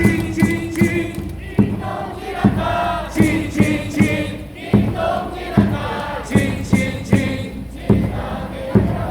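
Baseball stadium crowd singing and chanting a cheer song together with amplified music, a strong beat about every 0.8 seconds.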